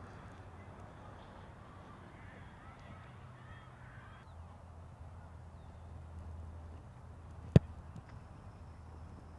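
A single sharp thump of a foot striking an American football, about three-quarters of the way through, over steady outdoor background noise. Faint bird calls chirp in the first half.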